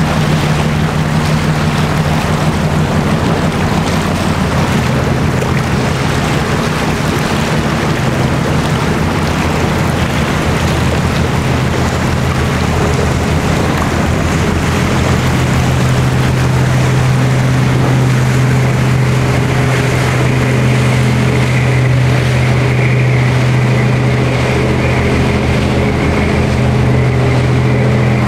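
Low, steady drone of a passing general cargo ship's diesel engine, growing a little stronger about halfway through, over a constant rush of wind and water wash.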